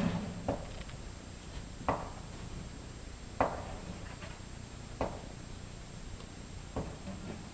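Repeated blows striking a wall being demolished: about six sharp knocks, one every second and a half or so.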